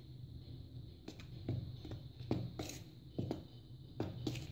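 Steel spoon stirring dry gram flour and spices in a plastic bowl: faint, irregular scrapes and light taps, about two a second, over a low steady hum.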